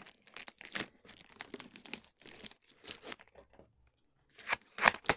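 Plastic wrapping being torn off a cardboard box and crumpled: irregular crinkling and rustling, with a brief pause near the end and then two louder crackles.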